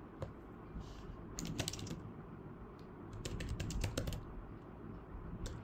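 Keys of a tablet's attached physical keyboard clicking in short bursts of typing.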